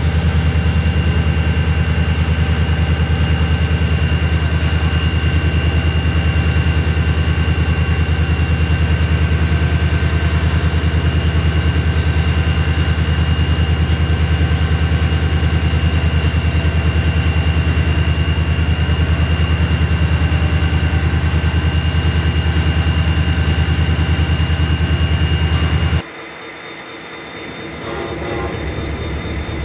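Diesel locomotive engine idling close by: a steady low hum with a faint steady whine above it. It stops abruptly a few seconds before the end, leaving a quieter rumble that slowly builds.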